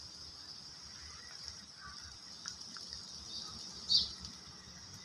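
Steady, high-pitched chirring of insects such as crickets, with one short bird chirp about four seconds in.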